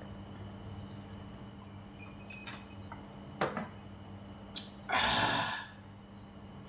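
A few faint clicks and a light clink as a drinking glass is set down on a wooden table, then about five seconds in a short, loud breathy gust from a man's mouth, an exhale after a drink of iced tea and a mouthful of food.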